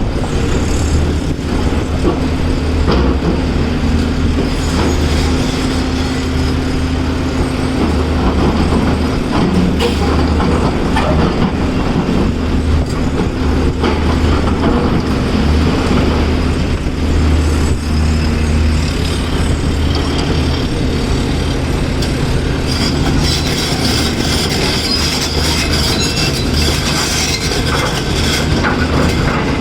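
Heavy excavator's diesel engine running steadily under load, with metal rattling and clanking over it.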